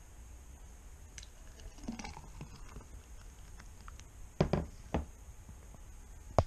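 A pink drink poured from a pitcher into a glass, a faint pattering pour, then two loud knocks a little past halfway as the pitcher meets the table, and a sharp click near the end.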